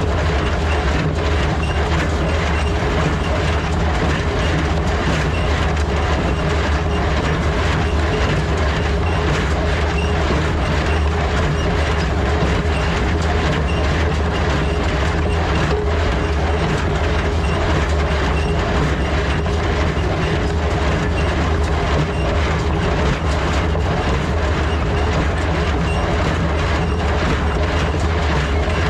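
Ford 3000 tractor engine running steadily under load while it drives a New Holland 273 square baler, whose pickup, plunger and knotter mechanism make a continuous rhythmic clatter as it bales hay.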